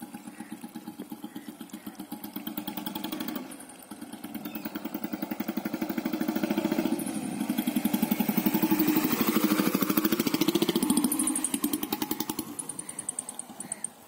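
Royal Enfield Bullet Standard 350 single-cylinder engine running through a hollow bend pipe fitted with a whistle and a hollow long-bottle silencer: a steady beat of exhaust pulses that grows louder as the bike rides up and past, then fades as it moves off. Near the end a high whistle rides on the exhaust beats.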